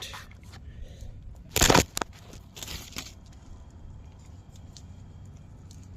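Short scrapes and knocks from a car's front strut being twisted by hand in its mount, which does not turn. One loud scrape comes about a second and a half in, then a fainter one, with a few small clicks.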